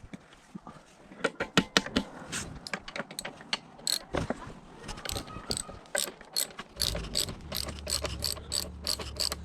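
Ratchet wrench clicking as it loosens the dirt bike's rear shock and swingarm bolts, the clicks coming quicker, about four a second, in the second half. A steady low hum comes in about seven seconds in.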